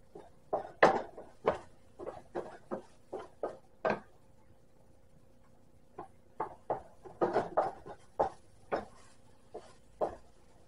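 Wooden spatula scraping and knocking against a frying pan in short, irregular strokes as mashed cauliflower is stirred, with a pause of about two seconds in the middle. A faint steady hum runs underneath.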